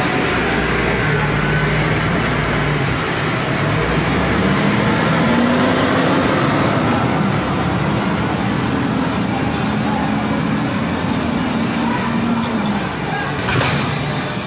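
Heavy truck engines running in a loud, continuous din, with a single sharp crack near the end.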